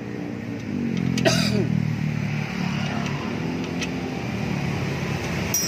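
A vehicle engine running steadily in the background, with a short rise in pitch about a second in. A sharp metallic click near the end.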